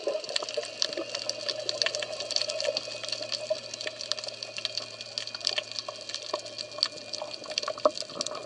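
Underwater ambience at a rocky seabed: a dense, irregular crackle of sharp clicks over a steady hiss, with a faint low hum underneath.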